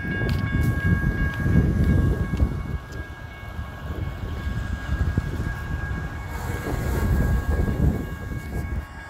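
Cars and a bus passing over a railroad crossing, with wind buffeting the microphone. Under them runs a steady high ringing from the crossing's warning bell, left sounding because the malfunctioning gate is stuck on the signal lights.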